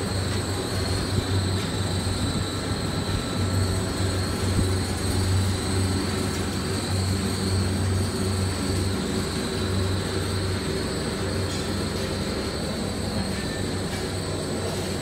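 Chewing gum production line machinery running steadily: a continuous low motor hum with a thin, steady high whine above it.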